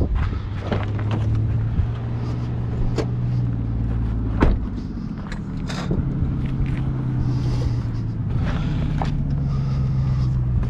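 Honda Accord's engine running steadily, a low even hum, with a few sharp knocks at intervals.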